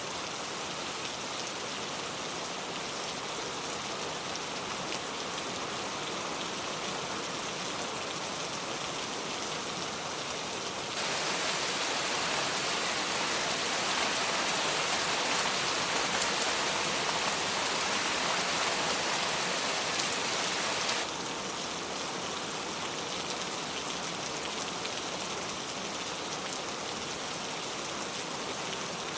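Steady rain falling. It gets abruptly heavier about eleven seconds in and drops back to the lighter level about ten seconds later.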